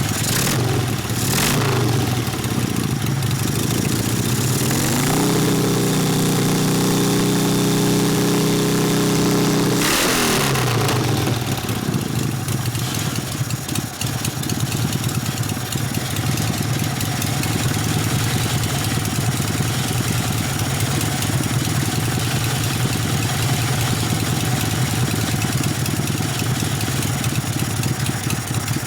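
Freshly rebuilt 1972 Harley-Davidson Ironhead Sportster V-twin running at idle. About five seconds in it is revved up, held at higher revs for around five seconds, then drops back to a steady idle.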